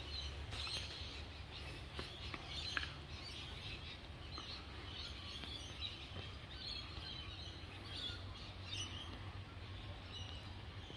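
Quiet outdoor ambience: small birds chirping on and off over a low, steady rumble, with a couple of faint clicks two to three seconds in.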